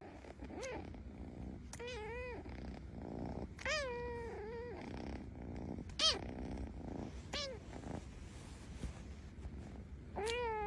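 Sleeping ginger kitten purring steadily, with a handful of short, high, squeaky mews over the purr.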